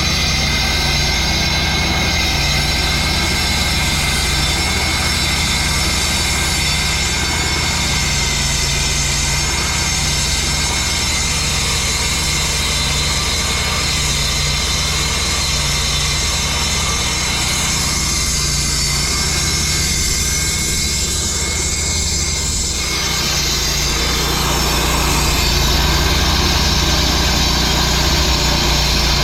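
Gas-powered concrete saw running steadily at high revs while saw-cutting control joints in the fresh concrete driveway, its tone changing about three-quarters of the way through.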